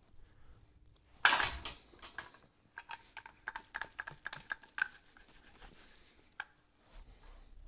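Small hand roller run along a freshly hot-glued rug edge, making a quick run of light clicks and taps. A louder brief scuff of gloved hands on the rug comes about a second in.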